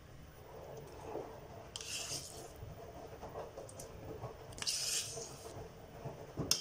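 Faint kitchen handling sounds: soft scraping and squishing as ricotta is spooned into a stainless-steel stand-mixer bowl, with two short rustles and a click near the end.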